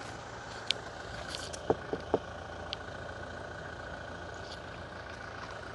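A vehicle engine idling steadily, with a few brief sharp sounds about two seconds in.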